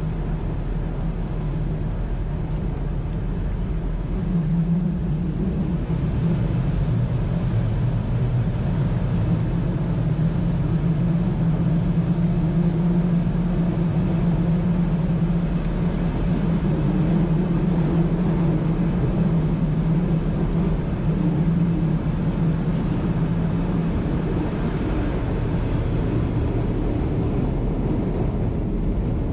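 A 1920s CPH railmotor's engine running under way, a steady low drone over the rumble of the running gear on the track. The drone grows louder about four seconds in and fades again near the end.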